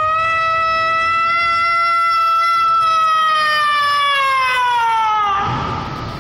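One long siren-like howl from a voice, rising at the start, holding a steady pitch for about five seconds, then sliding down near the end.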